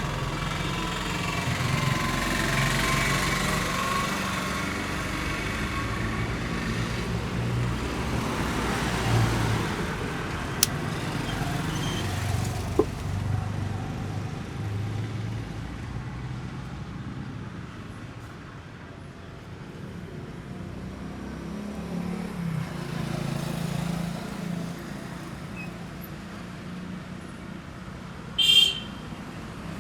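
Road traffic noise, a steady rumble of passing vehicles. There are two sharp clicks partway through and a short, loud, high-pitched burst near the end.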